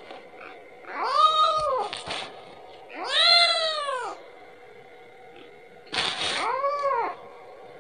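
Kitten meowing three times, each a long high call of about a second that rises and then falls in pitch, a couple of seconds apart: the plaintive calls of a kitten crying for its mother.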